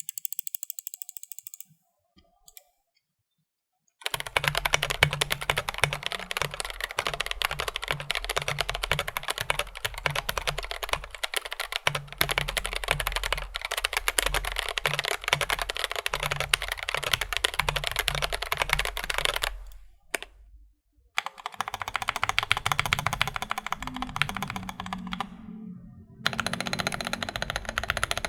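Stock GMMK Pro mechanical keyboard being typed on fast: a dense stream of keystroke clacks, with a short burst at the start, a pause of about two seconds, and another brief break near the two-thirds mark.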